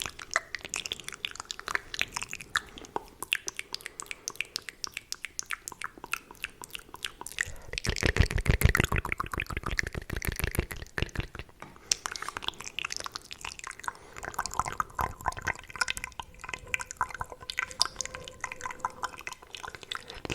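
Fast, aggressive wet mouth sounds made close to the microphone: rapid clicks and smacks in a dense stream, louder for a few seconds around the middle.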